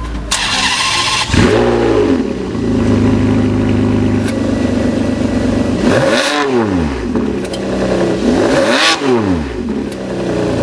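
Ferrari 599 GTB's V12 engine starting: a burst of cranking, a flare of revs about a second and a half in, then a steady idle. It is then revved twice, the pitch climbing and falling back to idle each time.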